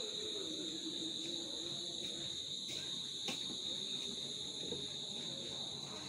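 Crickets chirring in a steady, high-pitched night chorus, with a single click about three seconds in.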